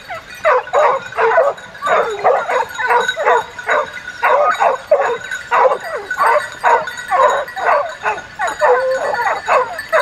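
Rubber dog squeaky toy squeezed over and over, a fast run of short high squeaks with bending pitch, several a second.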